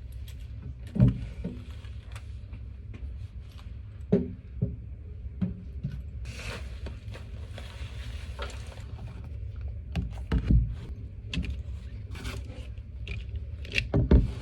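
Handling noise from a handheld phone camera on the move: irregular thumps and scrapes over a steady low rumble, with a brief hiss around the middle.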